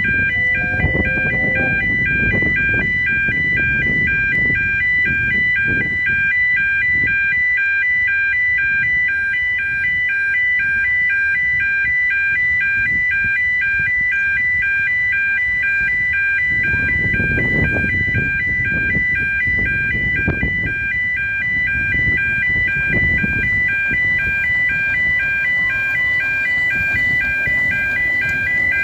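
Road level-crossing warning alarm sounding continuously as a train approaches: a fast, regularly pulsing electronic tone of several high notes. A low rumble swells beneath it for a few seconds in the middle.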